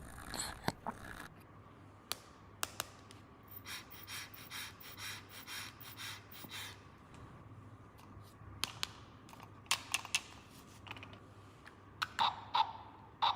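Plastic toy pieces and packaging being handled: scattered light clicks and taps, a few seconds of evenly repeating scratchy rustling, and short high squeaks near the end.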